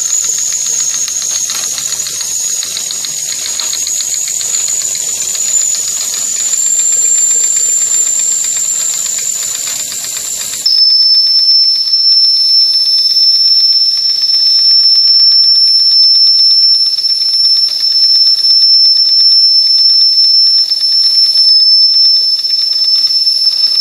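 Wilesco toy steam tractor under steam, letting off steam with a steady high-pitched whistling hiss. About ten seconds in, the tone suddenly drops a little in pitch and gets louder, and it holds there.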